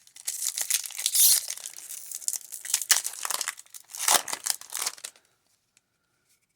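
A Magic: The Gathering booster pack's wrapper being torn open and crinkled in the hands: dense crackling that stops about five seconds in.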